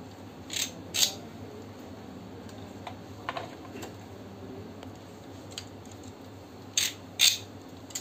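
Small metal screwdriver bits and sockets clicking and clinking against a plastic socket-set case as they are handled in their slots: a few sharp clicks, the loudest two close together near the end, over a steady low hum.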